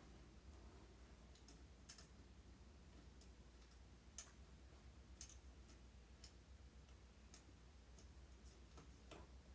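Near silence with about ten faint, sharp clicks and taps at irregular intervals.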